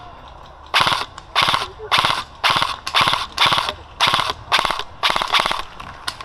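Airsoft electric submachine gun, a Double Eagle M917G UTR45 AEG, firing about ten short full-auto bursts at roughly two bursts a second. Each burst is a quick, clattering run of gearbox cycles.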